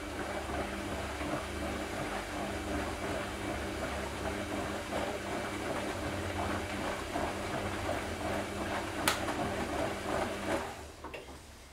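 Front-loading washing machine running: a steady motor hum over a low rumble, with a crackly hiss. There is a sharp click about nine seconds in, and the sound stops and fades away about a second before the end.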